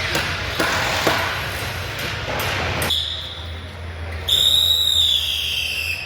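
Carpentry workshop din with sharp knocks, which drops away abruptly; then a loud high-pitched power-tool whine that falls slowly in pitch as the tool spins down.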